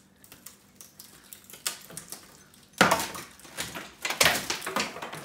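Long wooden boards knocking and clattering as they are pulled down and handled during demolition of a plank wall, with scattered small knocks and two loud clatters about three and four seconds in.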